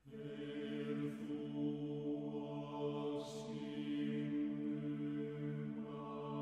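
Chamber choir singing unaccompanied: a slow, sustained chord held like a drone, with two brief hisses along the way and a higher note entering about six seconds in.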